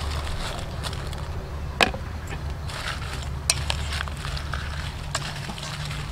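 A metal spoon stirring cherry tomatoes and dried red chilies through a wet sauce in a stainless steel bowl. The stirring gives a wet squishing, broken by sharp clinks of the spoon against the bowl, the loudest about two and three and a half seconds in, over a steady low hum.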